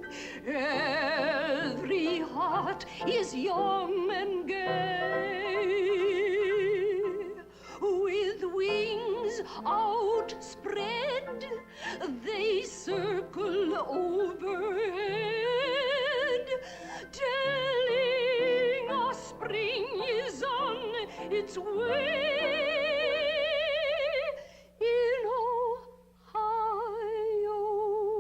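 A woman singing a song in an operatic style with a wide, wobbling vibrato, over musical accompaniment, with a short break near the end.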